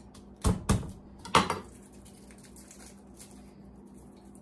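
Garlic cloves being smashed with a kitchen knife on a wooden cutting board: three sharp knocks within the first second and a half. After that, faint crackling as the papery garlic skins are peeled off by hand.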